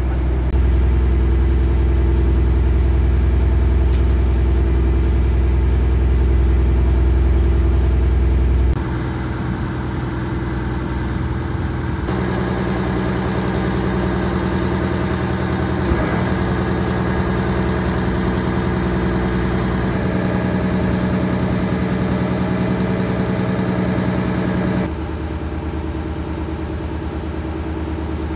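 Engine on a floating lift-net fishing boat running steadily, its pitch and tone changing abruptly three times: about a third of the way in, near the middle and near the end.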